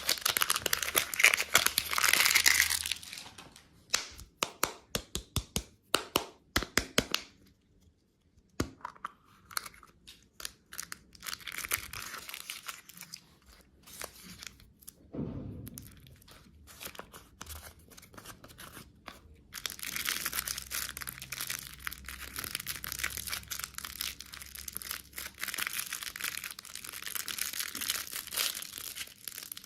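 Plastic candy wrappers and packaging being crinkled and torn open, in stretches. A run of sharp clicks comes between them early on.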